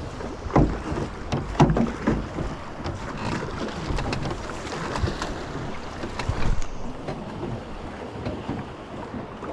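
River water running and slapping against the hull of a drifting boat, with wind on the microphone and a few knocks in the first two seconds.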